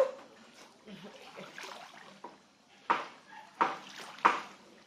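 Children splashing in water: a sharp splash at the start, then three more splashes close together in the last two seconds.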